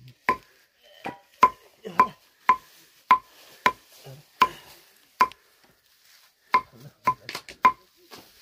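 A large curved knife chopping a bundle of dry thatch grass, about a dozen sharp strokes at an uneven pace, each with a short metallic ring from the blade, with a pause of about a second partway through and three quick strokes near the end.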